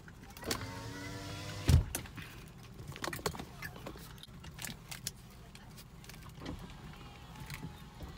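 A car's electric motor runs for about a second with a steady whine and stops with a loud thump. Scattered light clicks and knocks follow.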